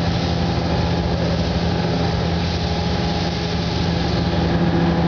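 Spray-painting equipment in a paint booth running with a steady machine hum and a constant hiss of air, heard while a coat is being sprayed onto a car.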